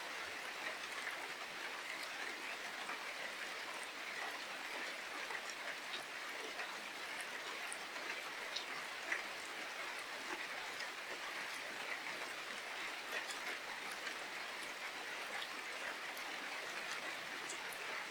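Steady rain falling, with individual drops ticking through it and one sharper drop hit about halfway through.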